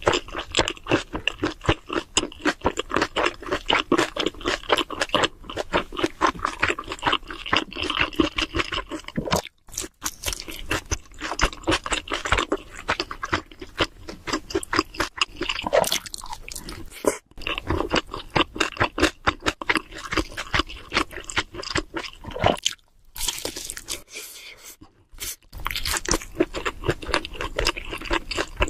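Close-miked chewing of cheese seafood pizza: rapid, crunchy mouth sounds, with a few brief pauses.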